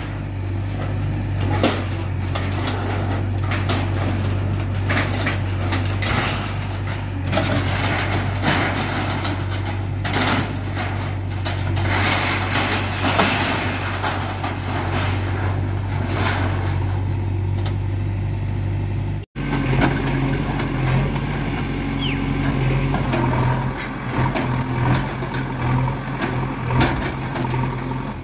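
JCB backhoe loader's diesel engine running under load while its bucket rips down a building, with repeated crashing and clattering of corrugated metal roof sheets and debris. After a cut about two thirds in, the engine runs with a rising and falling note and only occasional knocks.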